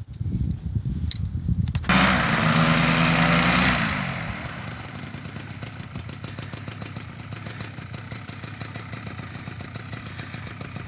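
Paramotor engine running. About two seconds in it jumps to a loud full-power run, then after about two more seconds it falls back to a steadier, quieter drone.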